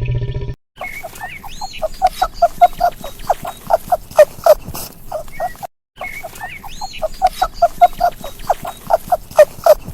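An animal sound recording: a rapid run of short pitched calls that come faster and louder, with a few high rising squeaks at the start. The same recording plays twice, with a short break in between.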